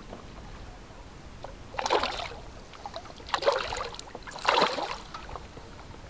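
Water splashing in three short bursts as a small hooked queenfish thrashes at the surface beside the dinghy.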